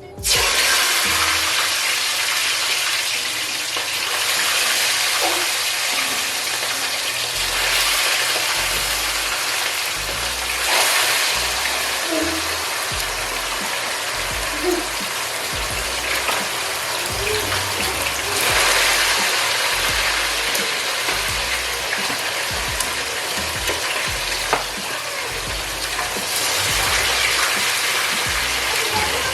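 Seasoned chicken frying in hot oil: a loud sizzle that starts suddenly as the pieces hit the pan, then keeps going with crackles, swelling and easing a few times.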